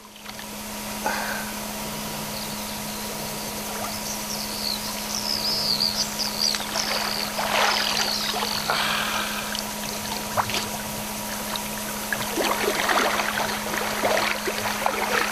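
Water sloshing and splashing around a man wading waist-deep through a river, with louder splashes about halfway through and again near the end.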